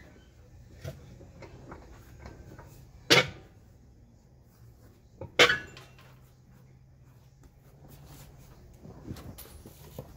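Heavy clunks from a steel tractor wheel being worked off its hub: two loud knocks about two seconds apart, with smaller knocks and clicks between.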